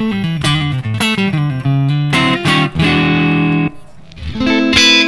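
Squier Affinity Stratocaster electric guitar played through a Yamaha THR10X amp on its crunch setting, a light overdrive that is not very strong. Single notes run downward, then chords; after a short break near the end, a chord rings out.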